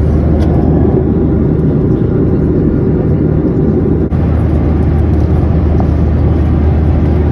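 Deep, steady roar of engine and airflow noise inside a Boeing 737-800's cabin in cruise, from its CFM56-7B engines, with a brief drop in level about four seconds in.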